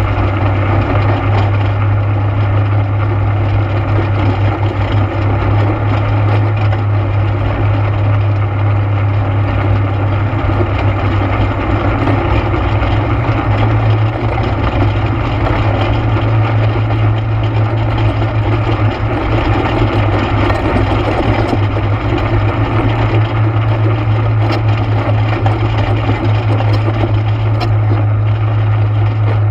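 ATV engine running at a steady pace, a loud, even low drone with a rough noisy layer above it.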